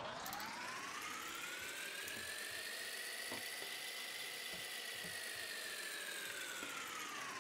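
Added editing sound effect for a fast-forwarded stretch: a steady hiss with a whistling tone that glides slowly up, levels off midway and starts falling again. A few faint ticks sit under it.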